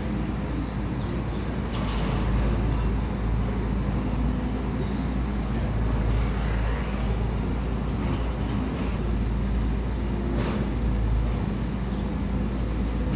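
Heavy construction machine's engine running steadily, with a couple of short metallic knocks.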